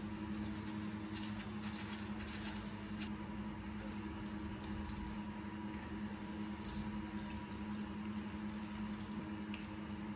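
Faint scratchy scrubbing of a toothbrush over a steady low electrical hum, heard in a small, reverberant bathroom.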